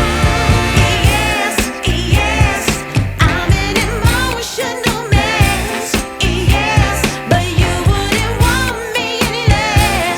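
A song with a sung vocal over a steady, driving beat.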